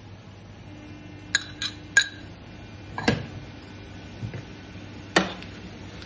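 A metal spoon clinking against cookware while stirring in a frying pan: about five sharp clinks with a short ring, three close together in the first half and two spread out later, over a low steady hum.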